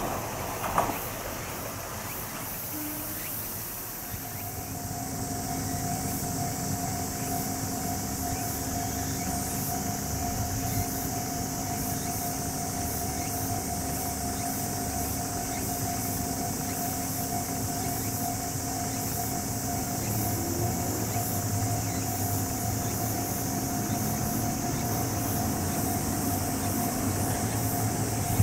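Insects chirping steadily in a high shrill, with fine regular pulsing, over the faint low rumble of an electric train on the Ohmi Railway. The rumble grows slightly louder near the end as the train approaches. In the first second, the sound of the previous train fades away.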